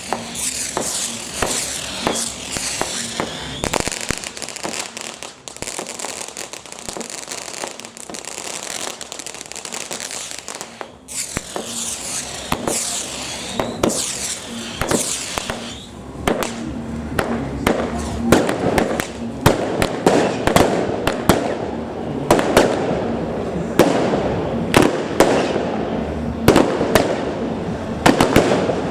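Fireworks going off in quick succession: sharp bangs and crackling, with whistling glides near the start and again about halfway. The bursts grow denser and louder over the last third.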